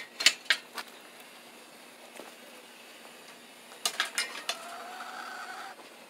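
Sharp metal clinks and rattles: a quick cluster of them at the start and another about four seconds in, the second followed by a steady squeak lasting just over a second.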